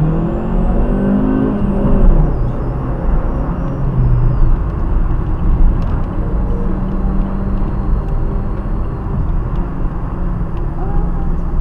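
Car engine and road noise heard from inside the cabin while driving. The engine note climbs and then drops about two seconds in.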